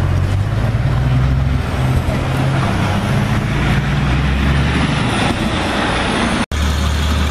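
A vehicle engine idling steadily, with a low even hum. About six and a half seconds in it cuts off for an instant and a similar steady engine hum follows.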